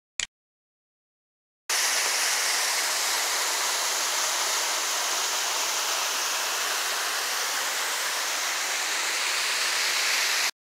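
Small waterfall splashing into a pool: a steady rush of falling water that cuts in suddenly about two seconds in and cuts off just before the end. A single short click comes just before it.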